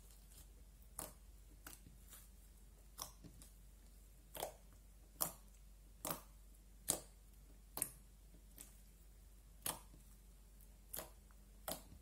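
Slime being kneaded and pressed with the fingers, giving a series of separate short, crisp pops and clicks at uneven intervals about a second apart, loudest in the middle.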